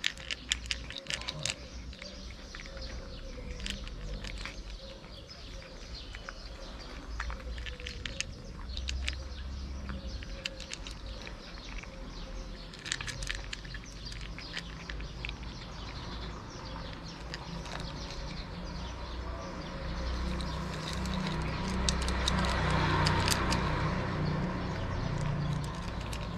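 A cat chewing dry kibble from a plastic dish: a scatter of short crunching clicks over a steady low outdoor rumble that swells for a few seconds near the end.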